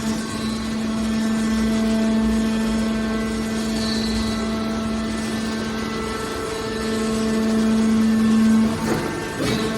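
Hydraulic steel baler's power unit running with a steady hum, growing louder about seven seconds in, then a few knocks near the end.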